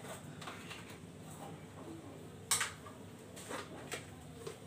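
A few short clicks over a faint room background, the sharpest about halfway through and lighter ones following.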